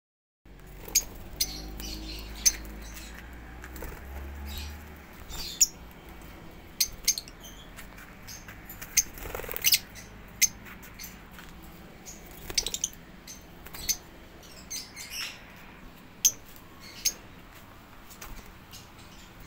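Caged pet parrots giving short, sharp, high chirps, scattered irregularly about once a second.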